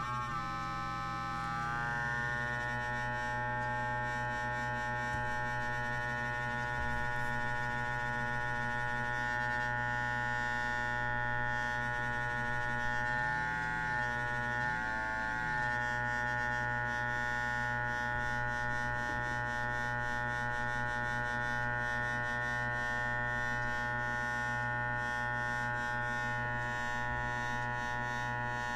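Home-built modular synthesizer oscillator sounding a steady drone with many overtones. Its pitch glides down and settles in the first second or two, then bends briefly about halfway through as the tuning knob is turned.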